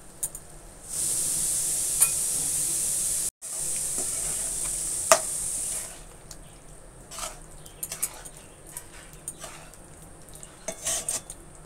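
Coconut milk, cashew and raisin paste sizzling as it hits the hot steel karai of mutton: a steady hiss that starts about a second in and lasts about five seconds, with one brief break. Then a metal spatula scrapes and clicks against the karai as the mutton is stirred.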